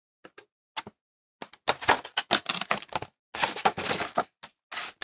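Paper dust jacket rustling and slapping against a thick hardcover omnibus as it is wrapped back onto the book, after a couple of light clicks at the start.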